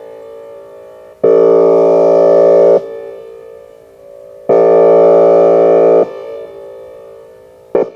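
Whelen Vortex R4 outdoor warning siren sounding its Air Horn signal: loud blasts of a steady multi-tone horn chord, each about one and a half seconds long with a gap of similar length, echoing away after each blast. A very short blast comes just before the end.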